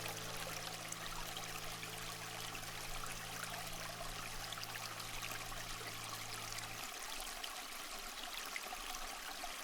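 Faint, steady trickle of running water, like a small stream, under a low held drone that cuts off about seven seconds in.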